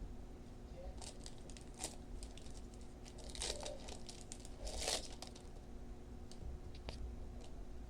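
Foil wrapper of a Pokémon booster pack crinkling and tearing as it is handled and opened, in scattered crackles, loudest about three and a half and five seconds in.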